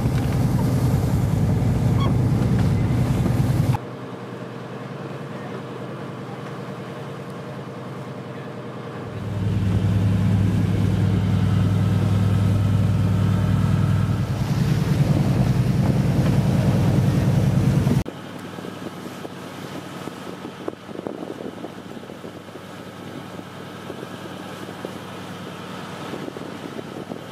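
A boat's engine droning steadily, a low hum with wind and sea noise over it, that cuts off abruptly twice, leaving quieter stretches of wind and water.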